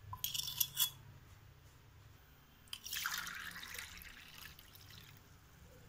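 A few light clinks of a steel spoon against steel cups, then water poured from a steel tumbler into a steel saucepan of milk, starting suddenly and splashing for about three seconds before tapering off.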